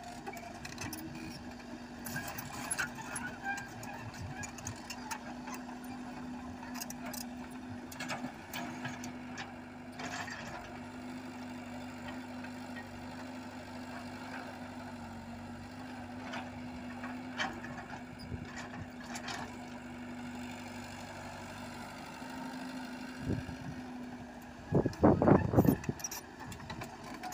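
Komatsu PC78UU mini excavator's diesel engine running steadily as the machine levels loose dirt, with scattered clanks and knocks from the working machine. A burst of loud knocking comes near the end.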